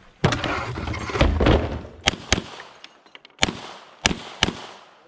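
Pistol shots fired during an IDPA stage: a loud burst with a rumbling tail near the start, then about six sharp cracks, some in quick pairs, each with a ringing echo.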